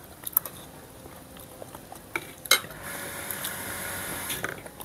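Metal spoons clinking and scraping on plates during a meal, with a sharp clink about two and a half seconds in. A steady hiss sets in about three seconds in and stops shortly before the end.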